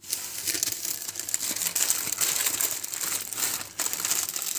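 A sheet of thin wrapping paper crinkling and crackling continuously as it is rolled tightly around a paratha roll.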